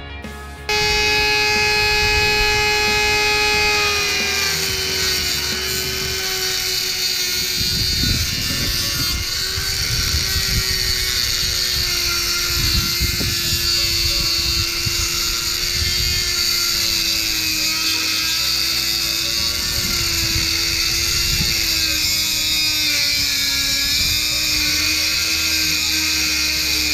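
Corded rotary tool with a small cut-off disc running at high speed and cutting into a metal gate: it starts about a second in with a steady high whine that sinks slowly and wavers in pitch as the disc bites, over a grinding hiss.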